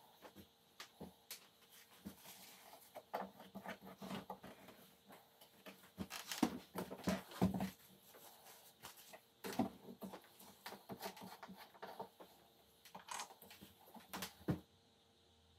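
Irregular handling noises on a workbench: light clicks, knocks and paper rustling as small plastic bottles, a plastic jug and a plastic mixing cup are moved and set down and a paper towel is crumpled. The noises stop shortly before the end.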